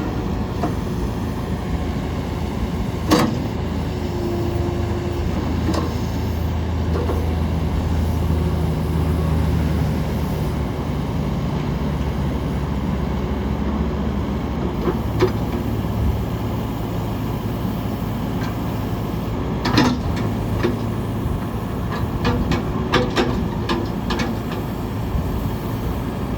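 John Deere 310K backhoe loader's diesel engine running steadily while the backhoe is worked, its note rising under hydraulic load for several seconds early on and settling again. Several short clanks come through, about three seconds in and in a cluster near the end.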